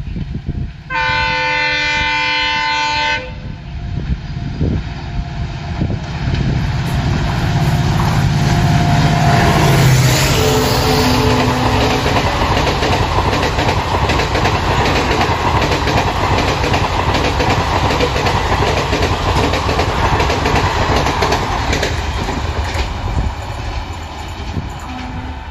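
A WDP-4D diesel locomotive (EMD two-stroke engine) sounds its multi-tone horn for about two seconds on approach. Its engine rumble builds and passes close by. A long rake of ICF passenger coaches follows, rolling past with a steady clickety-clack of wheels over rail joints, and the sound cuts off suddenly at the end.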